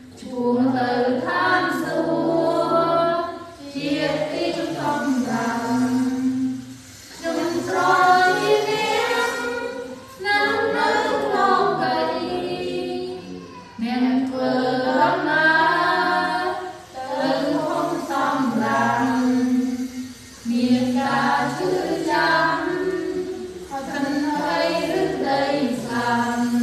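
Small group of girls and women singing a Khmer hymn together, unaccompanied, from hymnbooks. The singing comes in phrases of about three to four seconds with short breaks for breath between them.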